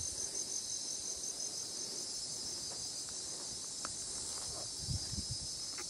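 Steady high-pitched insect chorus, with a pulsing trill running through it, and a few faint low bumps near the end.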